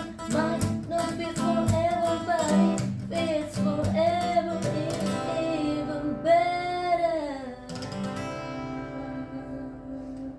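Acoustic guitar accompanying a singing voice in the closing bars of a song. About six seconds in, the voice holds one long note that falls away, and the guitar then rings on and fades out.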